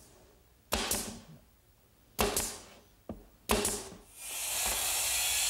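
Pneumatic nail gun firing into a plywood drawer bottom three times, about a second and a half apart, each shot a sharp bang with a short fading tail. About four seconds in, a loud steady rushing noise starts.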